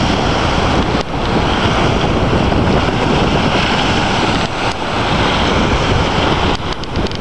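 Strong wind buffeting the camera microphone in a loud, steady rush, over the sound of small lake waves breaking on a sandy shore. The rush drops out briefly about a second in and a few times near the end.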